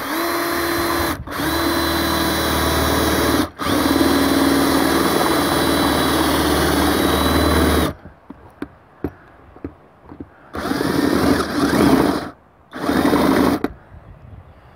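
Cordless drill running in short runs: three in the first eight seconds with brief stops between, then two shorter runs later on, each a steady motor whine. It is boring holes in hollow plastic cable trunking to pass a wire through.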